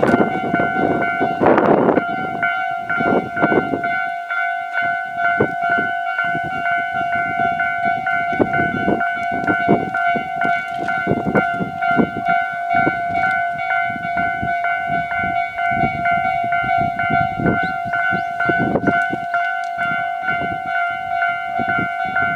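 Japanese railway level-crossing warning bell ringing steadily as a train passes, its wheels knocking over the rail joints. The rumble and knocking are heaviest in the first two seconds, then go on more thinly.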